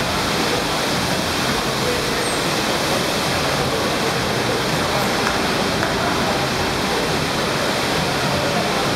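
Steady rush of water from an indoor sheet-wave surf simulator: a thin, fast sheet of pumped water flowing up a padded ramp, loud and unbroken.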